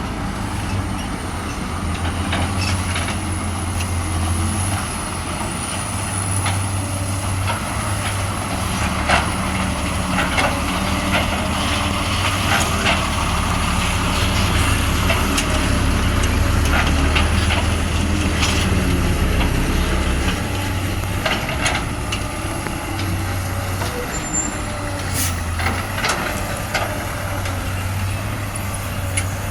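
Heavy diesel truck engines running steadily with a low rumble, with several short, sharp air-brake hisses scattered through.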